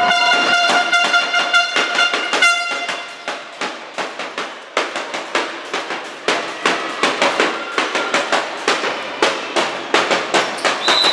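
Sharp echoing knocks in a sports hall, several a second, with a steady horn-like tone sounding over them for the first two and a half seconds.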